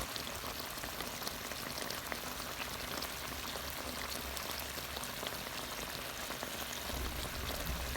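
Fish and moringa stew in coconut milk simmering in an uncovered pot, the coconut milk bubbling with a steady soft crackle of small pops.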